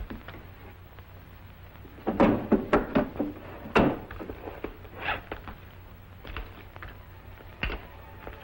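Knocks and clicks of objects being handled on a wooden office desk: a quick cluster of sharp knocks about two to four seconds in, then a few lighter taps.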